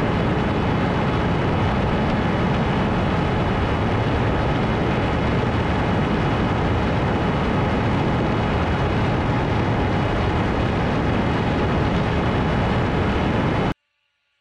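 Steady rush of wind and the whine of an electric motor and propeller on a Ritewing Hardcore 38 FPV flying wing in flight, cut off suddenly near the end.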